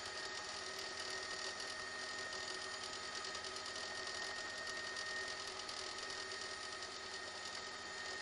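Helicopter running steadily, a constant mechanical noise with a thin high whine held at one pitch.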